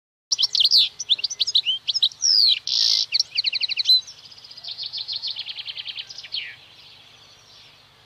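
European goldfinch singing: a fast, varied twittering of high notes with a buzzy note in the middle and a quick run of repeated notes. After about four seconds the song turns into a quieter repeated trill that fades away.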